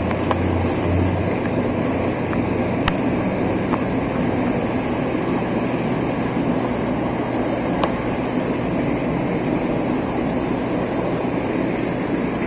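Steady rush of aquarium water pumps and aeration, with powerheads jetting streams of air bubbles into the tanks. A low hum sits under it for about the first second.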